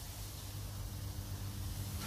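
Meat sizzling in a frying pan over an outdoor fire, a steady hiss. A low engine hum comes in underneath and grows louder near the end.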